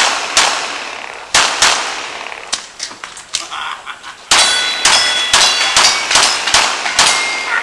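Glock pistol firing a string of shots, a few spaced apart at first, then a quick run of about three a second in the second half. Steel targets ring with a clang after the hits.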